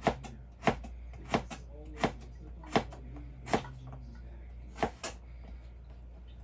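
Chef's knife slicing food on a plastic cutting board: sharp knife strikes on the board, about one every two-thirds of a second, pausing briefly, then two quick strikes close together.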